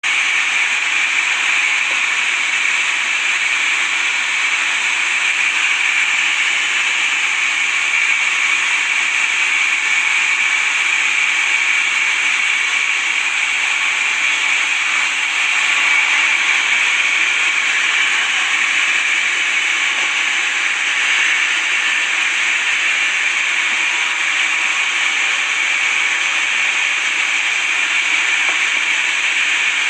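Sawmill saw cutting through wood: a steady, unbroken hiss that never pauses or changes.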